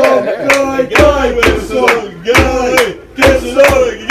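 Football supporters chanting in the stand, keeping a beat of loud knocks about twice a second.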